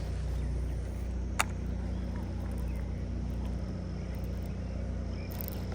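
Steady low motor hum, with a single sharp click about a second and a half in.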